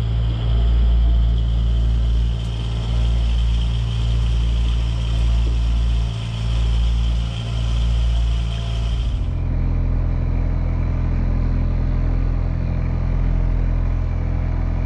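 Honda outboard motor running steadily, pushing a fishing boat at trolling speed, a low drone mixed with wind rumble on the microphone. About nine seconds in the sound shifts abruptly to a steadier, duller drone.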